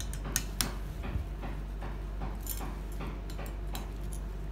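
Small metal clicks and taps of an Allen key and steel screws against a cast stainless steel lever arm as the screws are backed out and swapped. A few sharp clicks in the first second or so, then fainter ticking.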